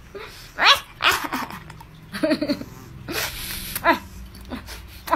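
A person kissing and nuzzling a cat: a handful of short, sudden smacks and puffs of breath about a second apart.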